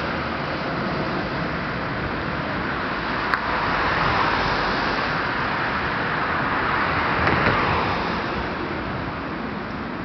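City road traffic: cars passing by with a steady rushing of tyres and engines that swells twice as vehicles go past. A single sharp click sounds about a third of the way in.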